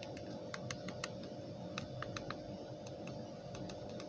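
Buttons on the keypad of an I KALL K5310 feature phone being pressed to scroll through its menu: a dozen or so sharp plastic clicks at an uneven pace, some in quick runs, over a faint steady hum.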